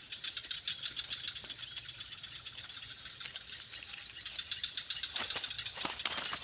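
Steady insect chorus, a continuous high-pitched buzz with a lower grainy trill beneath it, joined about five seconds in by a short spell of rustling and clicks.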